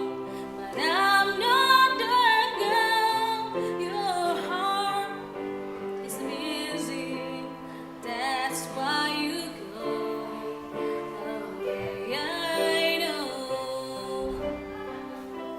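Music: a woman singing in a classical style with vibrato over sustained accompanying notes, with louder phrases about a second in and again near the end.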